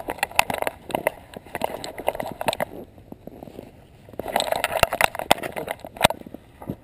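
Irregular knocks, clicks and scraping from a GoPro Hero2 in its housing strapped to a trotting dog: the loosely fitted mount jostling and the dog's fur rubbing on the case, all muffled by the housing. The knocks thin out about three seconds in and come thick and loud again after four seconds.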